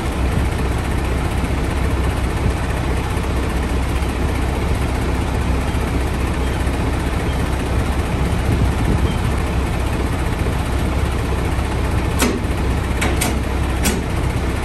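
Semi truck running with a steady low rumble and noise, with a few sharp knocks near the end.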